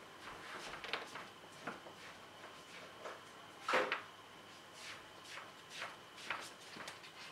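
Faint, scattered knocks and clatter from someone moving about and handling things off-camera, with one louder knock a little under four seconds in.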